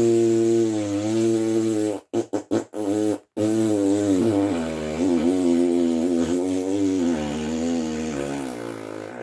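A person blowing a long, wavering raspberry with the tongue as a mock fart, the cat's bean-powered blast-off. It breaks into a few short sputters about two seconds in, then runs on again and fades near the end.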